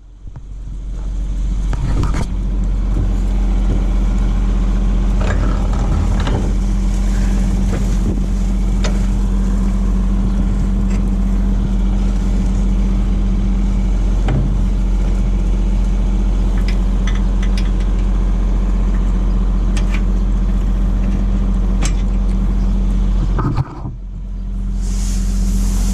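Farm tractor engine running steadily under way, with scattered rattles and knocks. It cuts out briefly near the end, then continues.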